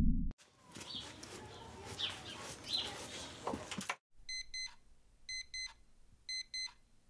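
A low whoosh cuts off just after the start. Then comes faint outdoor hiss with a few short bird chirps. From about halfway on, a digital alarm clock beeps in quick pairs, about one pair a second.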